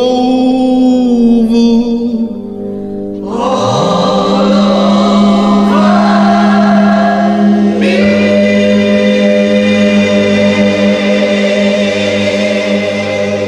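Closing of a gospel song: a held sung note from the last word, then sustained choir chords that shift twice and are held.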